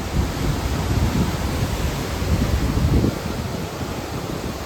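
Strong wind blowing across the microphone in gusts, a steady rushing hiss with uneven low buffeting.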